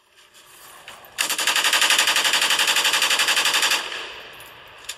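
Burst of rapid automatic gunfire, used as a sound effect. A fast, even rattle of shots starts abruptly about a second in, runs for about two and a half seconds, then fades away.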